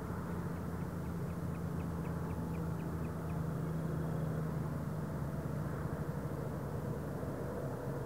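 A steady low drone, like a distant engine, runs throughout. Over it, in the first few seconds, comes a faint run of short, high bird notes at about four a second.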